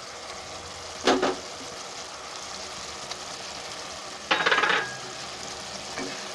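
Mustard gravy sizzling and bubbling in a kadai as fried tilapia pieces are added. Two short metal clatters of utensils against the pan stand out, a brief one about a second in and a longer rattling one around four and a half seconds.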